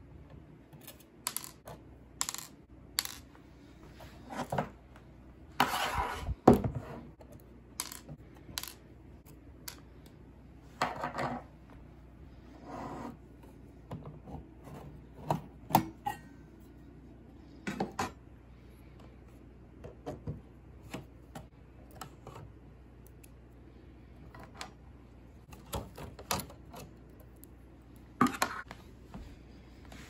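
Small screws being taken out of a Bitmain APW7 power supply's sheet-metal case: scattered screwdriver clicks, scrapes and metal clinks as the screws are set down on the table and the lid is handled. The loudest clatter comes about six seconds in.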